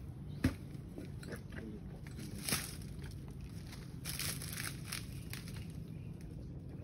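A wooden-handled digging tool jabbed into packed soil: two sharp strikes, then crunching and scraping of earth and dry palm fronds around four to five seconds in.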